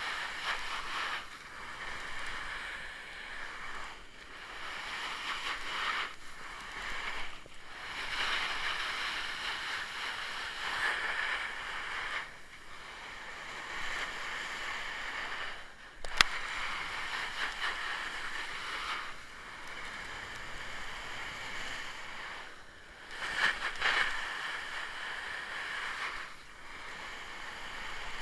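Edges sliding and scraping over snow on a steep descent, a continuous hiss that swells and dips with each turn. There is one sharp click partway through.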